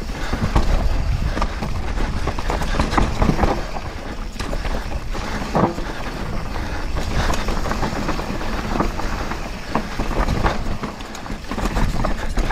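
Downhill mountain bike descending a dry, rocky dirt trail: tyres crunching over loose rock and dirt, with frequent knocks and rattles from the bike, over a steady low rumble of wind on the microphone.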